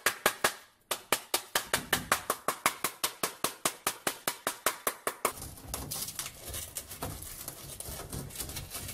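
A hammer tapping quickly and evenly on the rusted steel shell of a WWII German M40 helmet, about five light blows a second, knocking loose rust scale, with a brief pause about half a second in. From about five seconds in the tapping gives way to a metal tool scraping and scratching at the rust inside the helmet.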